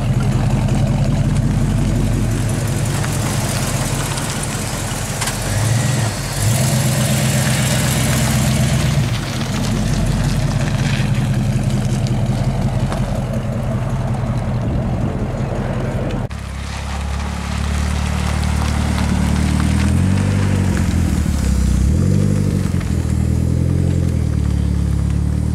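A large early-1970s American sedan's V8 idling, with a short rev about a quarter of the way in. After a cut about two-thirds through, a Ford Sierra RS Cosworth's turbocharged four-cylinder idles, with several quick blips of the throttle near the end.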